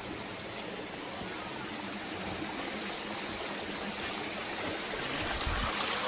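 A small stream running and trickling over rocks, a steady wash that grows slightly louder toward the end. There is a brief low thump just before the end.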